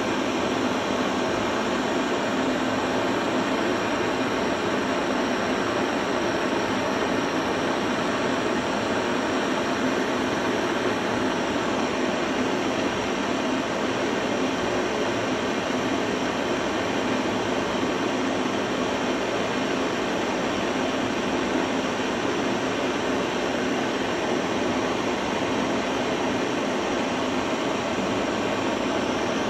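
Gas blowtorch flame burning steadily, a constant rushing noise that does not change, as it heats a copper pipe joint for brazing.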